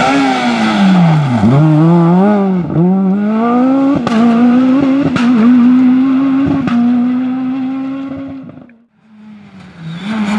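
Renault Clio rally car's engine at high revs as it drives through the stage. The revs drop and climb back twice in the first few seconds, then hold high and steady with a few sharp cracks before the sound fades away. A second rally car's engine starts in near the end.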